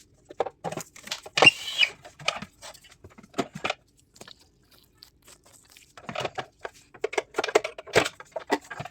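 Handling noises of a Daikin inverter air-conditioner circuit board being removed: scattered clicks and knocks of plastic connectors and the board, a louder scrape about a second and a half in, and a busy run of clicks from about six seconds in.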